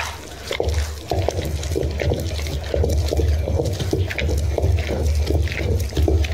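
Hand-turned stone pestle rolling in a traditional stone grinding mortar (rubbuva kallu), grinding grated coconut, green chillies and fried shoots with a little water into a wet paste. Stone rumbles on stone in a low, rhythmic way, with wet squelching from the paste.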